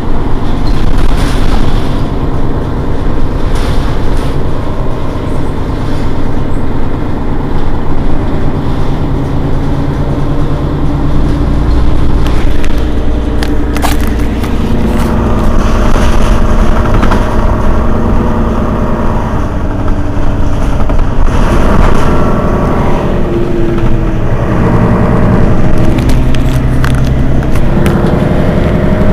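Mercedes-Benz Citaro city bus's rear engine idling steadily while the bus stands still, with a sharp click about 14 seconds in.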